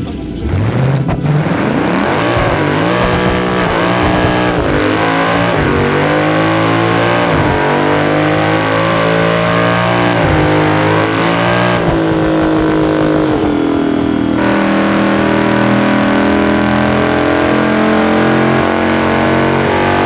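Twin-turbo V10 of a tuned Audi RS6 with a straight-through exhaust accelerating hard at full throttle. The engine pitch climbs and drops back at each of several quick upshifts, then settles into a steadier high-speed drone.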